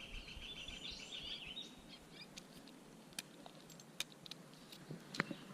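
Faint streamside ambience: a bird's high, trilling call for the first second and a half or so, then a few scattered sharp clicks over a soft hiss.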